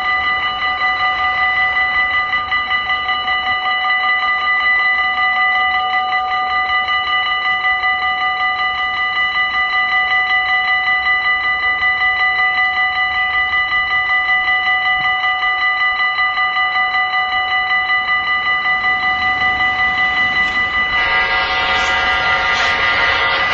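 Railway level-crossing warning bell ringing in a steady pulsing rhythm. About 21 seconds in, the louder noise of the approaching train joins it.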